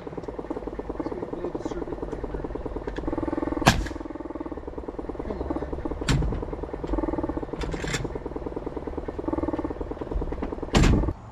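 Air compressor running steadily while a pneumatic nail gun fires about four sharp shots into framing lumber, the last the loudest. The compressor just can't get going: it is not keeping up with the air the nailer needs.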